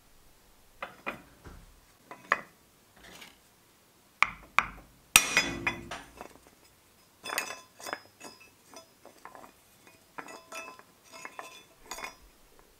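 Clinks and knocks of steel chain-tensioner parts being handled and fitted together with plastic wear blocks. There is a loud metal clank with a short ringing tail about five seconds in, then a run of lighter clinks.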